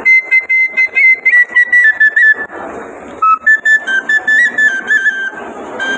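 End-blown bamboo flute (bansi) playing a melody of high stepped notes, pausing briefly about two and a half seconds in before the tune picks up again.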